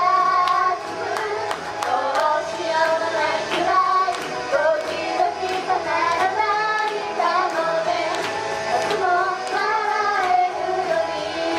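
Japanese idol pop group of young women singing live into handheld microphones over a pop backing track with a steady beat.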